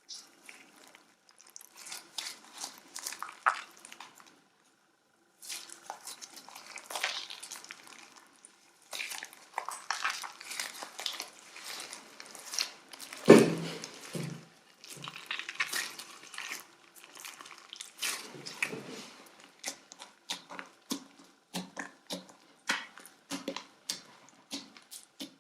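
Orange slime being squished and stretched by hand, giving a run of sticky, wet clicks and crackles. There is one loud pop about halfway through, and the clicks come more evenly spaced near the end.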